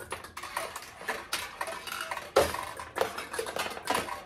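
Steel balls clattering and clinking in a vintage Heiwa Single Shot pachinko machine as it is played: a busy run of small metallic ticks, with a louder clack about two and a half seconds in.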